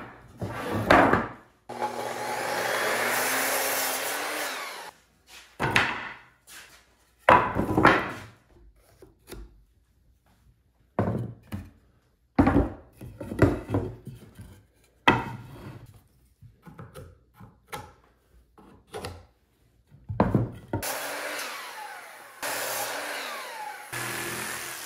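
Wooden boards knocking and clattering on a workbench as they are handled: sharp, loud knocks throughout. Twice, a corded jigsaw runs for a few seconds, cutting notches into the wooden strips: once early on and again near the end.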